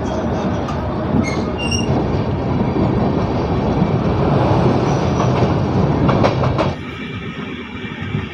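Passenger express train running along the line: a steady rumble of wheels on rails with a few brief high squeals and clicks. The sound drops abruptly about seven seconds in.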